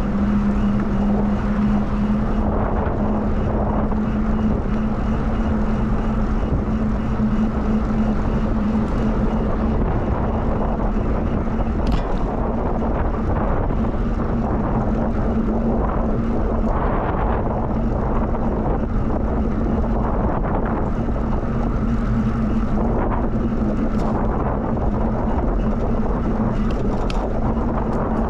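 Steady rumble of wind and rolling noise on the microphone of a moving bicycle, with a steady low hum.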